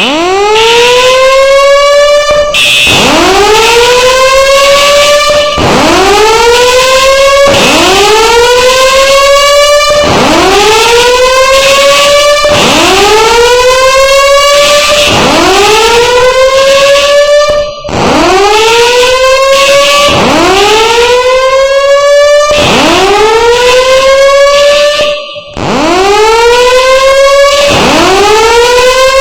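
Fire alarm sounder giving a loud whoop evacuation tone. Each note is a rising sweep that climbs, then levels off, repeating about every two and a half seconds.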